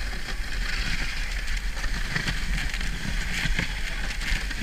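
Dog sled running over packed snow, heard through a GoPro's waterproof housing: a steady muffled rumble and hiss from the runners, with a few small knocks from bumps in the trail.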